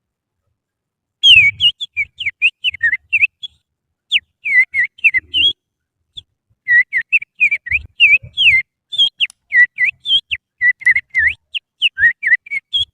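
A person whistling through the fingers (little finger), imitating the song of an oriental magpie-robin (kacer). It is a fast run of short whistled notes that sweep up and down, starting about a second in, with a brief pause about halfway.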